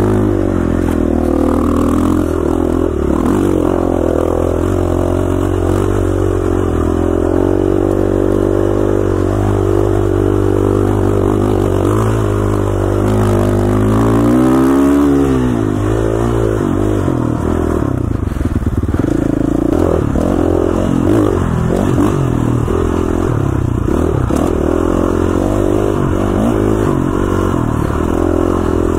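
KTM 450 XC-F dirt bike's single-cylinder four-stroke engine running under load on a rough trail, its pitch rising and falling with the throttle, with one rev up and back down about halfway through. Scattered knocks and rattles from the bike over the bumps.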